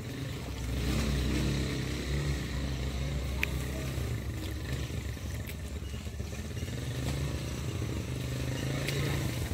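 Roadside motor traffic: a vehicle engine, likely a motorcycle, runs with a steady low hum that grows louder about a second in, with a few light clicks over it.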